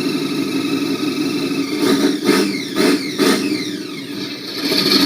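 Chevrolet Chevelle SS V8 engine and exhaust idling with a steady rumble. It rises briefly about three times in the middle, each time falling back to idle.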